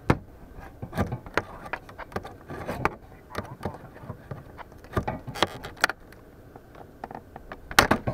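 Claw hammer prying nails out of a soffit panel: irregular knocks, clinks and scrapes of the hammer head against the trim, the sharpest right at the start and near the end.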